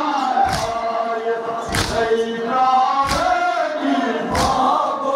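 A large crowd of men chanting a Kashmiri noha in unison. A sharp, loud collective chest-beat (matam) lands about every 1.3 seconds, four strikes in all.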